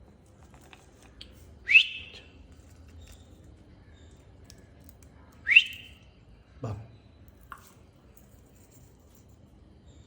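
Parrot giving two short, loud rising whistle calls about four seconds apart, followed by a lower, falling call.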